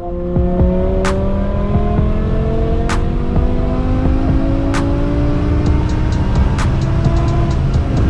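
BMW E60 M5's S85 V10 engine pulling under acceleration, its pitch rising slowly and steadily, heard from inside the cabin. Music plays along with it, a sharp beat about every two seconds and quick ticks joining near the end.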